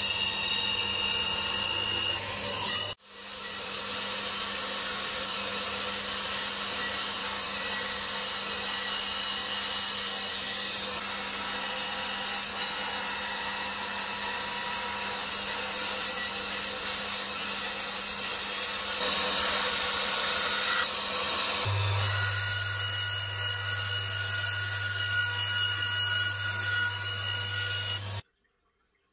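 Homemade wooden band saw running and its blade cutting through plywood, a steady machine noise with a low motor hum. It breaks off briefly about three seconds in and stops abruptly near the end.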